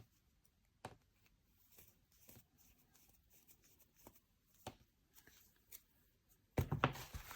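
Small plastic pump accessories being handled: a few faint, scattered clicks, then louder rustling and crinkling near the end as parts are picked up.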